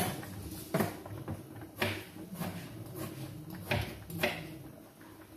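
Knife cutting vegetables on a cutting board: irregular knocks, about one a second, the first the loudest.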